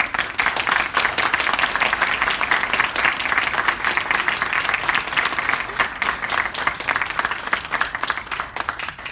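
Audience applauding, many hands clapping at once. It starts suddenly and thins out near the end.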